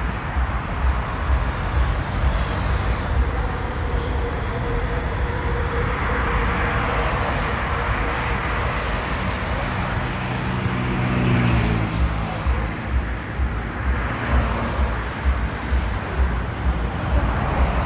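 Road traffic with a steady hum, and one vehicle passing close about ten to twelve seconds in. Wind buffets the microphone throughout.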